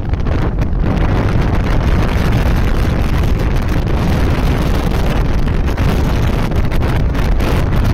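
Wind buffeting the microphone on a moving motorcycle: a steady, loud rush, with the motorcycle's running and road noise mixed in.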